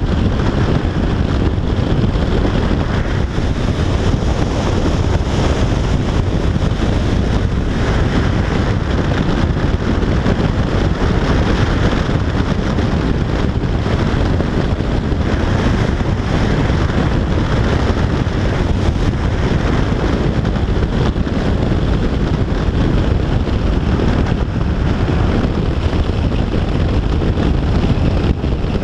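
Steady, loud wind rushing over the microphone of a camera riding on a Yamaha FJR1300AE touring motorcycle at road speed, with the bike's running engine and tyre noise beneath it.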